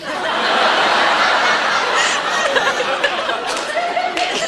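A crowd of audience members laughing together at a joke.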